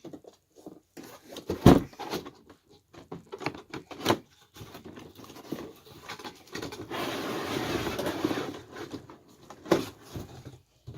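A surprise squishy package being handled and opened by hand: scattered knocks and small clicks of packaging, with a continuous rustle lasting about a second and a half past the middle.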